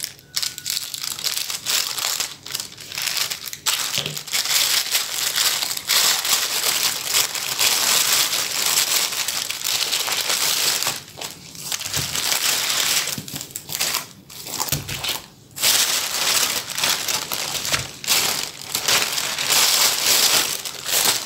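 Plastic packaging crinkling and rustling: a plastic mailing pouch being handled and opened and its plastic-wrapped contents pulled out, with a few brief pauses.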